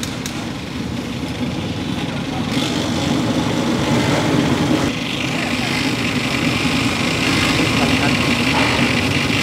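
Kerosene-fired pressure burner running at full flame under a pot of boiling noodle water: a steady low roar, with a brighter hiss that strengthens about two and a half seconds in and again about five seconds in.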